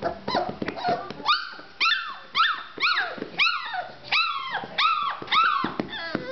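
Young chocolate Labrador puppy barking in a string of high-pitched yips, about two a second, each rising then falling in pitch, starting about a second in; these are the puppy's first barks, just learnt.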